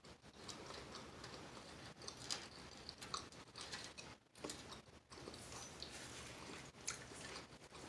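Faint chewing and mouth sounds of someone eating, in soft irregular clicks and crunches.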